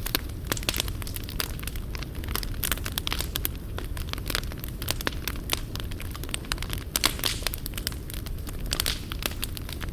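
Wood fire crackling: irregular sharp pops and snaps over a steady low rumble of flames.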